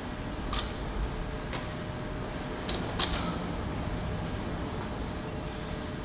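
Steady low gym hum with a few short clicks and creaks in the first three seconds, the sharpest about three seconds in, from a seated leg machine as a lifter settles onto it.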